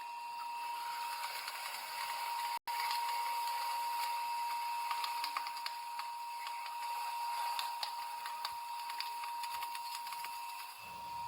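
A crushing machine running with a steady high hum while the object under it crackles and snaps irregularly; the sound cuts out for an instant about two and a half seconds in.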